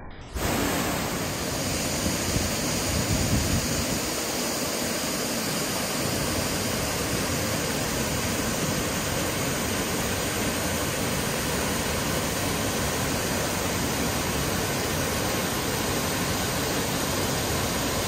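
Kirkjufellsfoss waterfall rushing, a loud, steady, even wash of noise that cuts in just after the start.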